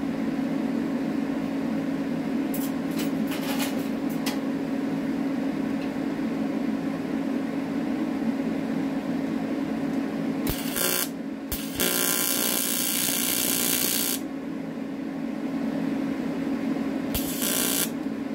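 TIG welding arc on aluminium struck in short bursts, a hissing crackle: a brief one about ten and a half seconds in, a longer one of about two seconds soon after, and another brief one near the end, over a steady low hum. The shielding gas had not been turned on for these starts.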